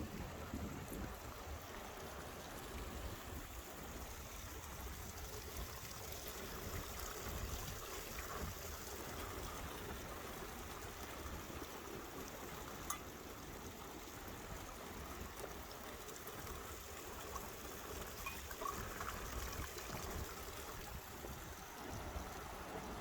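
Stream water running and trickling steadily, with one sharp click about thirteen seconds in.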